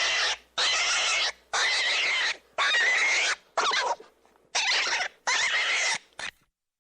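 Rabbit giving a series of about eight harsh squeals, each half a second to a second long, with short gaps between them.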